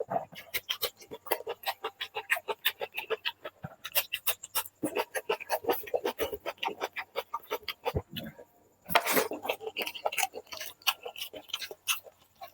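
Close-miked eating of chicken curry with rice: a rapid string of wet chewing clicks and smacks, pausing briefly about eight seconds in.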